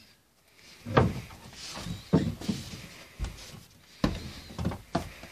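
Footsteps thudding on the wooden steps and floorboards of an old log house as children climb in, about half a dozen heavy steps at uneven intervals.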